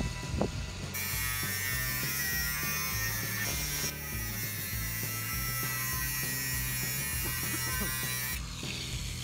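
Cordless angle grinder running and cutting lengthways along a 28 mm copper pipe, a steady high whine and grinding hiss that changes abruptly a few times, about a second, four seconds and eight and a half seconds in. Background music with a steady bass line plays under it.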